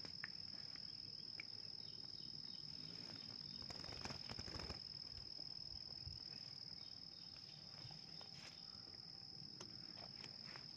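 An insect's steady, unbroken high-pitched trill, with a few faint rustles and clicks about four seconds in.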